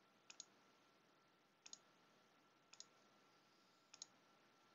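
A computer mouse clicking faintly: four quick pairs of clicks, about a second apart.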